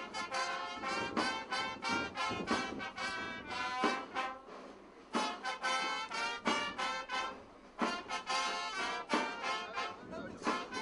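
Brass band playing, with trumpets and trombones sounding sustained notes.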